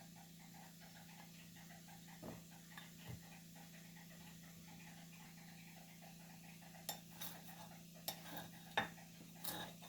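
Kitchenware being handled: a couple of soft knocks two to three seconds in, then a run of sharp clinks and taps over the last three seconds, over a steady low hum.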